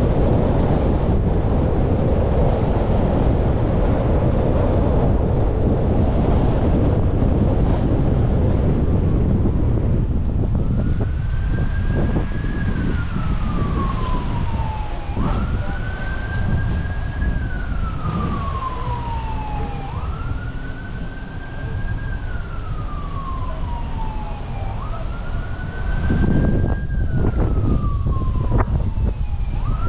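Steady road and wind noise from a moving car. About ten seconds in, an emergency vehicle's wailing siren starts, sweeping up quickly and falling slowly, about once every five seconds.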